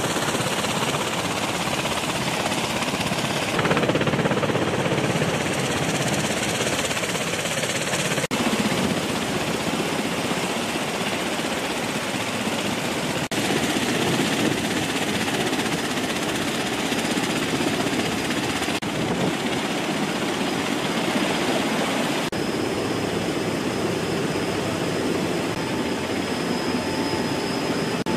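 CV-22 Osprey tiltrotor's engines and proprotors running at close range: a loud, steady, dense noise, with a thin high whine over it near the start and near the end.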